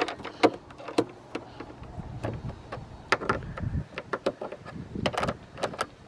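Ratchet wrench working the nuts off a Jeep Wrangler JL's factory hood latch: irregular sharp metal clicks and taps, with a brief low rumble near the middle.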